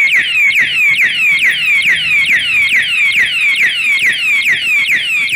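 Vibration-triggered anti-theft alarm padlock sounding its loud electronic siren, set off by a second jolt after its first warning: a rapid falling whoop repeated about three to four times a second.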